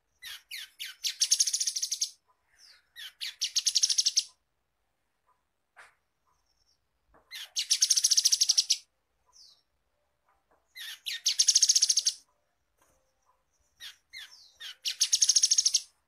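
Grey-headed canary-flycatcher singing: five bursts of a fast, high trill of rapid notes, each about a second and a half long and led in by a few short separate chirps.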